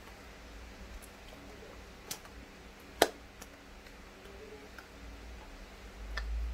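A few sharp taps of hands meeting while signing in sign language, the loudest about three seconds in, over quiet room tone, with a low rumble of movement near the end.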